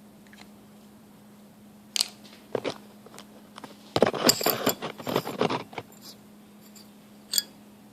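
Small metal latch parts being handled on a work surface: scattered clinks and scrapes, with a burst of clattering about four seconds in and a single click near the end. No grinder is running.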